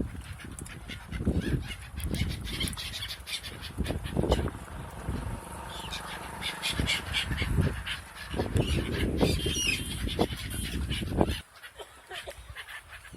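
Waterfowl honking and calling, over a loud low rumble that surges and fades repeatedly and cuts off abruptly near the end.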